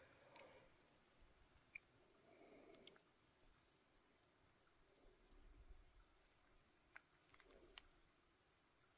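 Near silence with faint insect chirping: a high, regular chirp about twice a second over a steady high trill, and a few light rustles.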